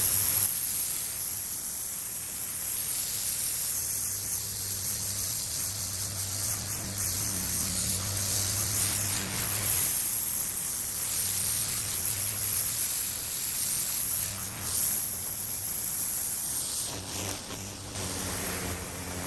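Pressure washer running, its spray hissing steadily over a low engine hum while blasting stripped paint off concrete.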